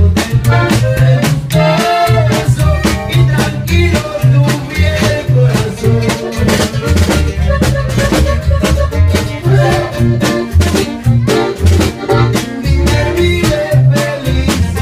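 Loud live band music with an accordion over a bouncing, stepping bass line and drums.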